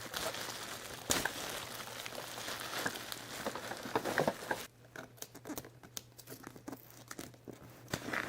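Packaging crinkling and tearing as it is handled and opened. Dense crinkling for about the first four and a half seconds, then scattered light rustles and clicks.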